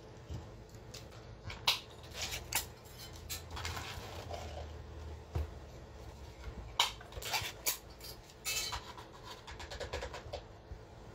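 A glass jar clinking and knocking against a serving plate as sauced seafood is shaken out of it: irregular clinks and short scrapes.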